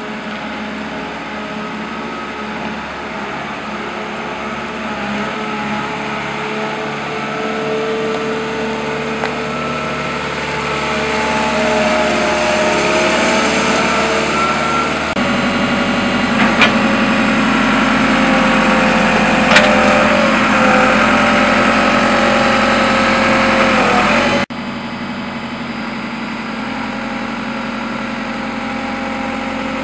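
JCB 4CX backhoe loader's diesel engine running, its pitch drifting up and down as it works, with two sharp knocks past the middle. The sound changes abruptly twice, once about halfway and again near the end.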